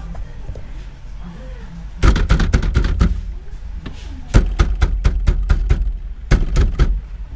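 Hands striking a Toyota Vios steering wheel to knock it loose from the steering shaft splines, with the centre nut slackened but left on. Three quick flurries of sharp knocks: about two seconds in, about four and a half seconds in, and near the end.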